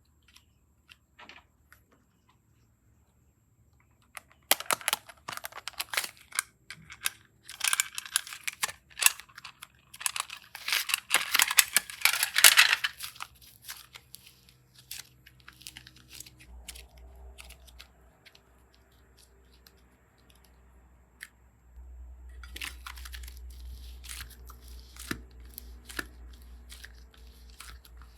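Slime being pulled and squeezed by hand, giving dense sticky crackling and tearing sounds. The crackling is loudest from about five to thirteen seconds in, then goes on more softly near the end.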